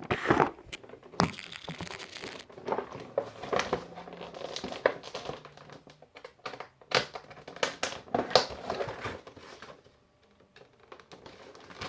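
Plastic packaging crinkling and crackling in irregular snaps and rustles as hands work at it, trying to get it open. It falls nearly quiet for a moment near the end.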